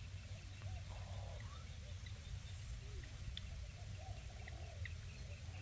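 Outdoor ambience: faint scattered bird calls and chirps over a steady low rumble of wind.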